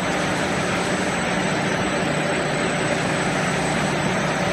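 Pet-treat extrusion line machinery running: a steady mechanical drone with a low hum.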